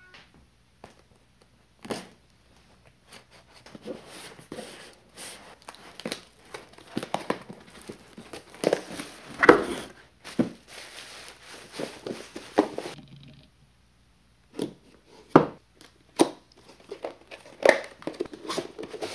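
A parcel being unpacked by hand: cardboard and tape tearing, with bubble wrap crinkling and rustling, dense and crackly until about two-thirds of the way in. After a short lull, a cardboard product box is handled and opened, with separate sharp clicks and knocks.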